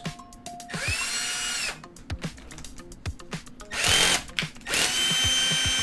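Cordless drill-driver whirring in three short runs, each a steady high whine that spins up quickly, with light tool clicks between them, while the oil filter comes off a Suzuki Katana 750 engine.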